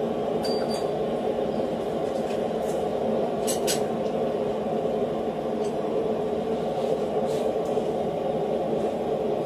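Steady, even noise of a forge running while steel heats, with a few light metal clinks of tongs and tools.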